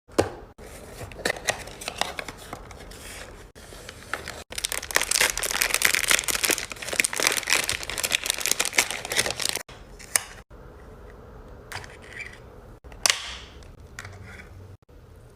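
Close-up handling of makeup products: dense crinkling and crackling with many small clicks, busiest from about five to ten seconds in, then sparser taps and scrapes. The sound breaks off abruptly several times.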